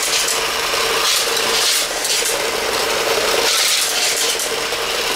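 Estrela Fitti-Show toy racing game running, a steady mechanical hum with a continuous plastic rattle that swells and eases every second or so.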